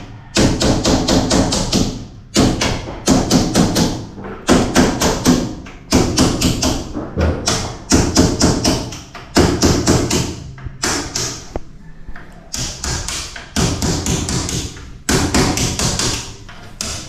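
Repeated hand-struck taps on a stair-tread tile as it is bedded and levelled, coming in quick runs of several strikes with short pauses every second or two.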